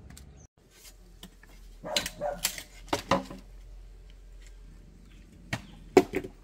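A dog barking: a run of short barks about two to three seconds in, then two more near the end.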